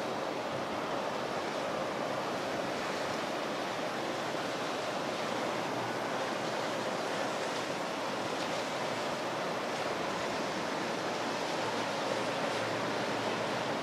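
Steady, even rush of ocean waves and surf.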